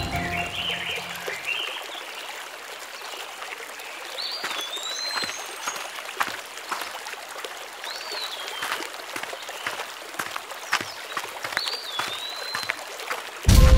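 Water trickling and splashing along an irrigation channel, with a bird repeating a short whistled call that rises and then falls, about every four seconds. Music comes in loudly near the end.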